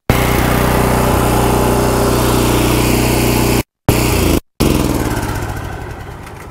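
Gas engine of a belt-driven pressure washer running at a steady speed, then shut off about four and a half seconds in and winding down, its note falling as it coasts to a stop. The sound cuts out completely twice for a moment.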